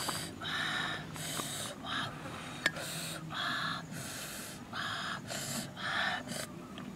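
A woman's rapid mouth breaths while eating snail meat, short hissy gasps in and out about twice a second. There is one sharp click about two and a half seconds in.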